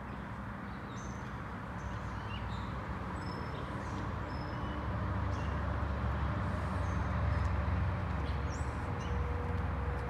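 Outdoor lot ambience: a low rumble that grows louder around the middle, with scattered short bird chirps.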